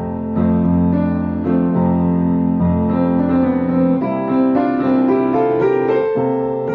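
Background music played on piano: a gentle melody over held bass chords, with notes changing every half second or so.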